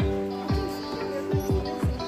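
Background music: held chords over four deep bass-drum hits that drop in pitch.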